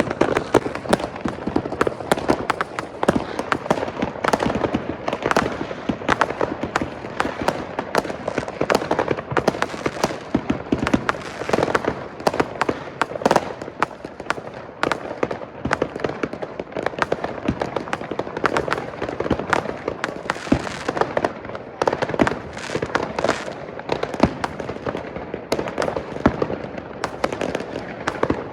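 Many consumer fireworks and firecrackers going off at once, a dense, continuous barrage of bangs and crackles from all around, from neighbours lighting their own at midnight on New Year's Eve.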